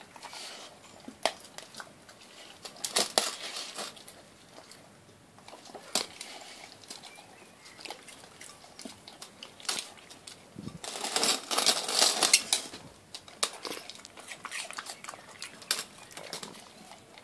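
A dog licking and chewing food out of a glass dish, with many sharp clicks and knocks against the glass. The busiest, loudest stretches come about three seconds in and again around eleven to twelve seconds.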